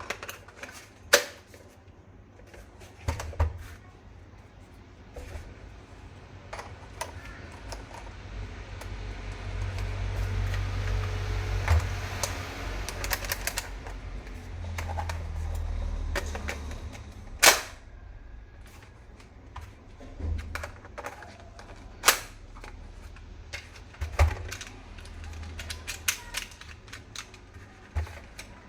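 Toy rifle being handled: sharp plastic clicks and snaps at irregular intervals, with a stretch of rustling and handling noise in the middle.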